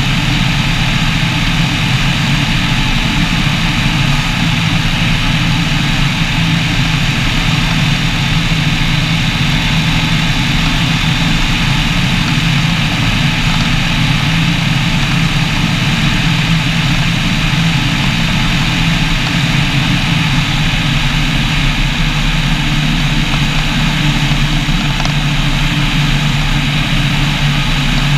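Microlight trike's rear-mounted engine and pusher propeller running steadily in cruising flight, with the rush of air over a camera mounted out on the wing strut.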